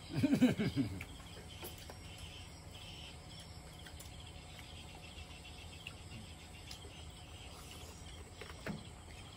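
Insects, crickets by their sound, chirring steadily in the background, with a short voice-like sound in the first second.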